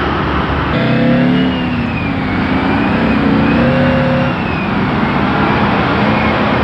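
Traffic noise that, under a second in, gives way to a heavy crane truck's diesel engine pulling through an intersection, its note rising and falling as it goes, with passing cars around it.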